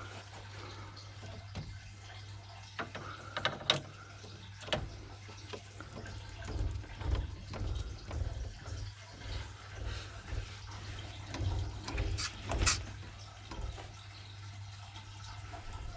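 Water running and dripping, with sharp clicks and knocks around four seconds in and again near twelve seconds, and low thuds in between.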